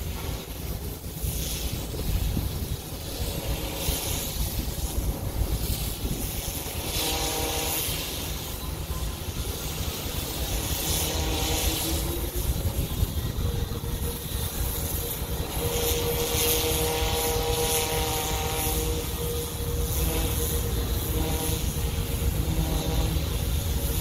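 Steady loud drone of a pressure washer at work, with a heavy low rumble. A faint pitched hum with overtones comes and goes, then holds steady through the second half.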